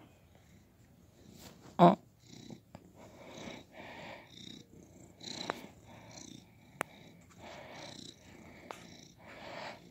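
Domestic cat purring close to the microphone, in soft swells that rise and fall about once a second with its breathing, with a sharp thump about two seconds in.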